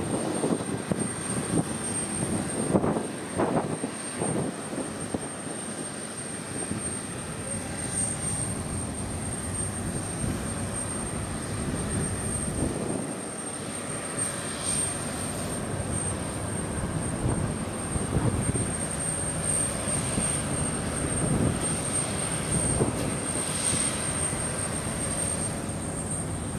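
Jet engine noise from a twin-engine regional jet, a steady low rumble heard from a distance.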